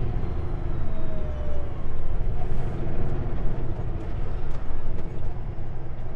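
Kenworth W900L semi truck's diesel engine running under way with road noise, a steady low rumble heard from inside the cab.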